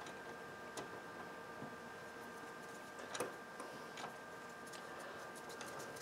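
Faint clicks and small ticks of a Phillips screwdriver driving screws into a transceiver's metal chassis, the sharpest click about three seconds in and a run of little ticks near the end, over a faint steady tone.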